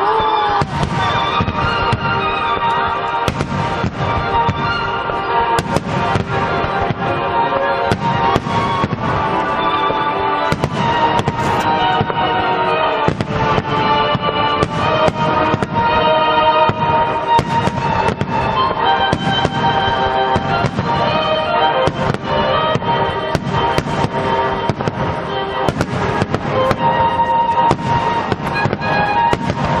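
Fireworks bursting in a dense, continuous barrage, many bangs a second, with music playing throughout.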